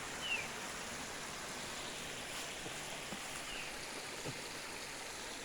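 Large stream running steadily, a constant rush of water, with a faint short falling high whistle twice.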